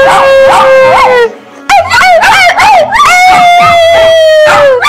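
Small dog howling. A long held howl falls off and stops about a second in. After a short pause come a few quick wavering rising-and-falling yelps, then a second long held howl that drops in pitch at its end.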